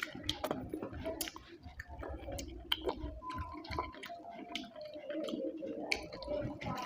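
A person chewing a mouthful of rice and curry close to the microphone, with wet smacking and clicking mouth sounds throughout. A faint drawn-out tone is in the background in the second half.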